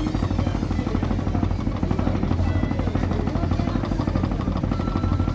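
The Vega 2 backwater boat's engine running steadily under way, with a fast, even throb.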